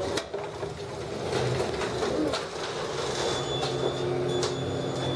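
Otis elevator doors sliding open: a steady mechanical rumble with scattered clicks from the door mechanism, over a low hum that grows in the second half, with a faint high steady tone near the end.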